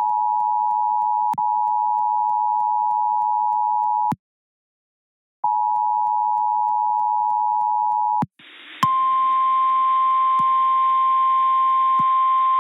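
Emergency Alert System attention signal: a steady two-tone beep that cuts out for about a second and a half near four seconds in, resumes, then about eight seconds in gives way to the single-pitch NOAA Weather Radio 1050 Hz warning alarm tone over radio static. The tones announce a severe thunderstorm warning.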